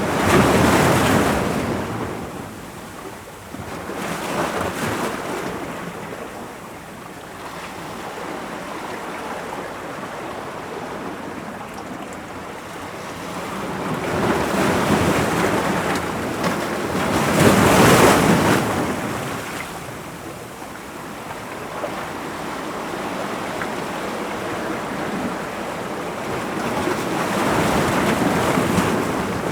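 Ocean waves breaking against rocks: a continuous wash of surf that swells into loud surges and falls back, the loudest about 18 seconds in.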